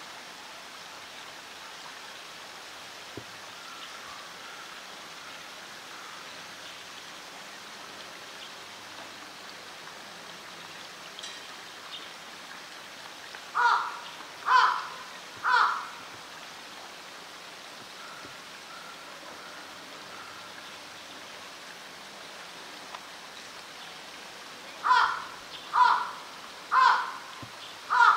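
A crow cawing: three harsh caws about a second apart midway, then four more at the same pace near the end, over a steady background hiss.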